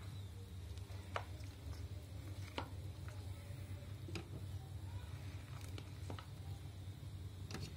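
Light, scattered clicks and knocks of cut vegetable pieces dropped and pressed into a juicer's plastic feed chute, about one every second or so, over a low steady hum.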